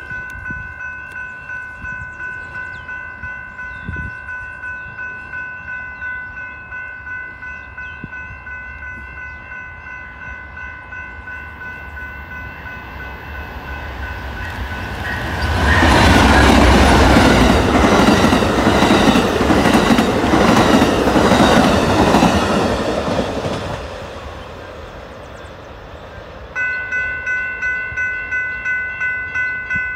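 Grade-crossing bell ringing in steady pulses, then an Amtrak passenger train led by a GE P42DC Genesis diesel locomotive passing close by at speed, its loud wheel and rail noise lasting about eight seconds before it fades. Near the end a crossing bell rings again, louder.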